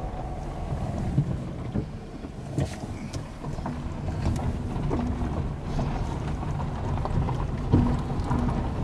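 Dacia Logan engine running at low speed as the car creeps over loose gravel, heard from inside the cabin. Stones click and crunch under the tyres, with a sharp knock near the end.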